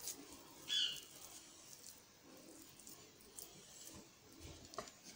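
Faint, soft squishing and light taps of fingers pressing a mashed potato and chicken mixture onto a bread round on a plate. A brief high squeak comes about a second in, and a few small ticks follow later.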